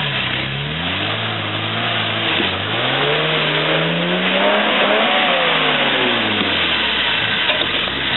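Four-wheel-drive's engine revving under load as it drives through water and climbs a muddy bank. The revs rise steadily for about four seconds, then ease back down.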